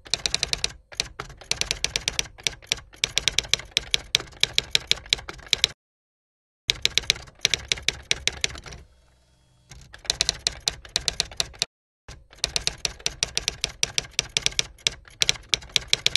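Typewriter sound effect: rapid runs of keystroke clacks, stopping briefly a few times between runs.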